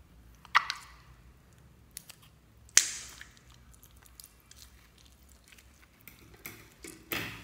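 Slime and foam beads being squished and pressed by hand: four sharp wet squishes, the loudest about three seconds in and two close together near the end, with small clicks between.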